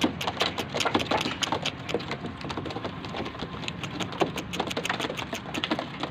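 Racing pigeons pecking corn kernels off a hard surface: many quick, irregular clicks and taps.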